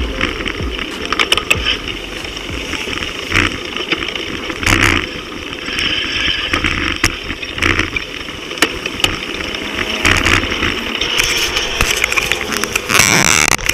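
Bicycle riding through city traffic: steady road and tyre noise with frequent clicks and rattles from the bike, and the engines of nearby cars and vans. A brief louder rush comes near the end.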